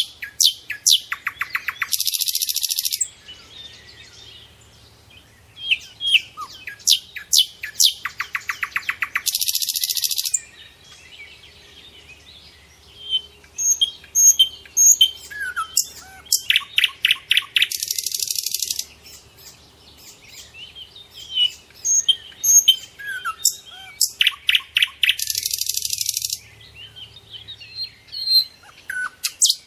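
Songbirds singing. One bird repeats a song phrase four times, about every eight seconds: a rapid run of quick notes ending in a harsh buzz lasting about a second. Scattered chirps and whistles come in between.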